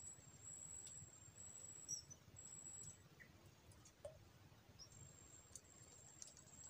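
Near silence: faint outdoor ambience with a thin, high tone that keeps stopping and starting, and a few faint ticks.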